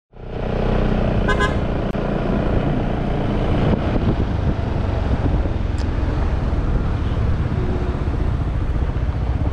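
Steady road and wind rumble from a vehicle driving along a road, with a short horn toot about a second and a half in.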